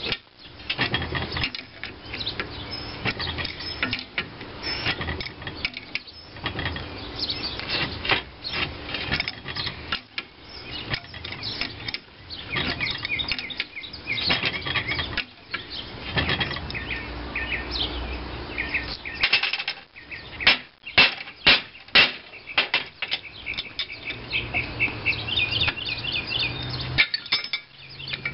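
Steel adjustable wrench clinking and clicking on a gear puller's forcing screw as it is turned and repositioned, pressing a crankshaft out of a cast-iron flywheel hub; several sharper metal clanks come about two-thirds of the way through. Birds chirp in the background.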